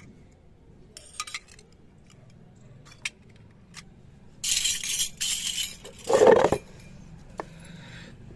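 Miniature stainless-steel toy kitchen utensils clinking and scraping as they are handled and set down on concrete: a few light clinks, then a stretch of scraping past the middle and a louder clatter about six seconds in.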